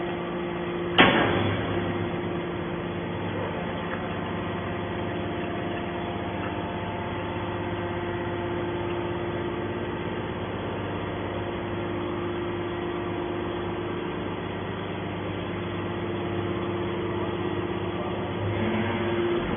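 Hydraulic aluminium-can baler running, its pump motor giving a steady hum, with one sharp clank about a second in.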